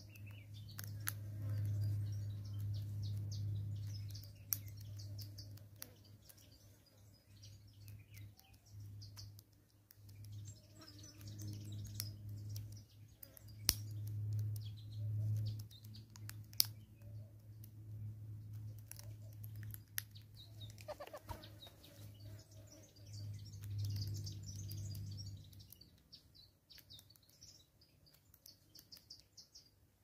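Sharp clicks and knocks every few seconds from a southern red-billed hornbill's bill pecking at seed on a wooden stump, over the chirping of small birds. A low droning hum swells and fades three times.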